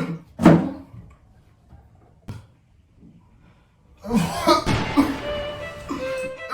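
A person coughing hard twice in quick succession at the start, with a shorter, fainter cough about two seconds in. About four seconds in, music comes in and carries on.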